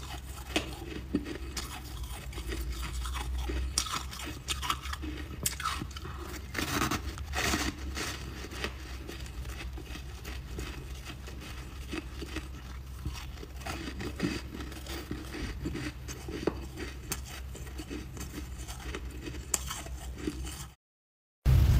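Close-up biting and chewing of crunchy white chunks of frost ice: irregular crisp crunches and crackles, one after another. The sound cuts out for a moment near the end.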